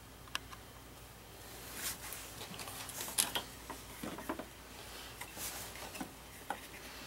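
Faint handling sounds: a few small clicks and a brief rubbing rustle as a hand works the rubber spark plug cap off the plug of a Honda mower engine.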